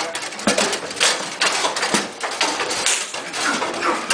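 Bonzini foosball table in play: the ball and the players' figures and rods knocking and clacking in quick, irregular hits.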